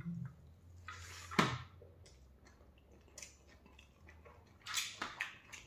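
Eating rice by hand from a steel plate: faint fingers scraping and gathering rice on the metal, then a few short wet mouth and chewing clicks, the sharpest about a second and a half in.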